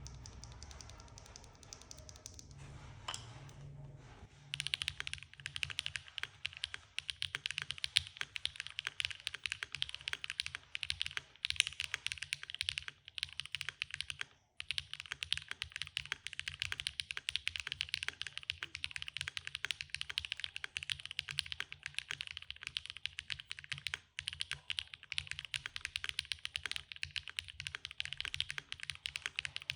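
Continuous fast typing on a Qk60 keyboard with an aluminium plate and no PE foam, fitted with hand-lubed Gateron x SwagKeys Modern Grey linear switches and Momokei keycaps, heard through a camera microphone. A dense run of quick, irregular key clacks starts about four seconds in.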